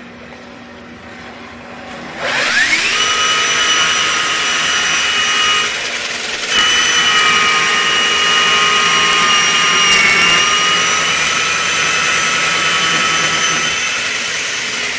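Concrete core drill rig's electric motor spinning up about two seconds in with a rising whine, then running loud and steady with a high whine. It dips briefly about six seconds in and then picks up again.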